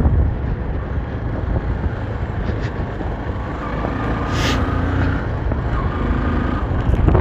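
Motorcycle engine running while riding along a gravel dirt road, mixed with wind and road noise in a steady low rumble.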